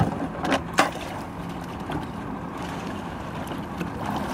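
Three sharp knocks within the first second as a Hobie fishing kayak on a wheeled cart is eased down a concrete boat ramp into the water, followed by a steady windy hiss.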